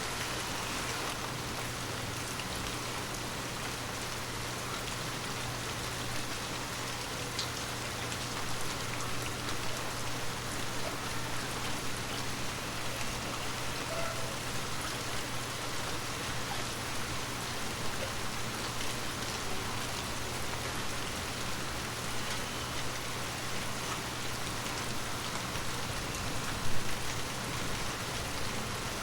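Steady rain falling on forest leaves: an even hiss of rain with scattered individual drops tapping, and one louder tap near the end.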